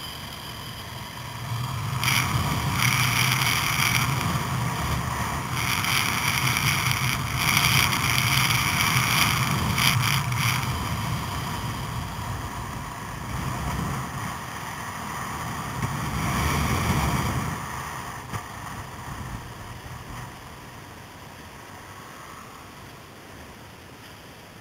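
Motorcycle engine running under way, with wind rushing over the microphone. It grows louder about two seconds in and dies down over the last several seconds as the bike slows.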